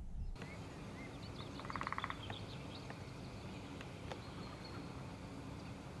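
Woodland ambience with faint, scattered bird calls. About two seconds in comes a short, rapid rattle of evenly spaced pulses lasting about half a second, and a couple of single ticks follow later.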